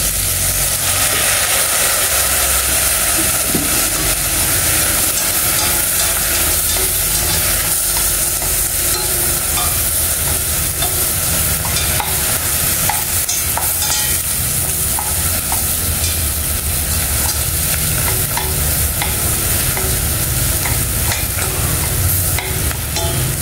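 Whole prawns with garlic sizzling and frying in a stainless steel pot, a splash of fish sauce added to them, while wooden chopsticks stir and turn them. Steady frying hiss, with scattered light clicks of the chopsticks against the pot.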